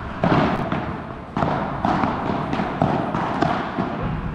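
Padel ball being struck by rackets and bouncing off the court and walls during a rally: about seven sharp knocks at uneven intervals, ringing on briefly in a large hall.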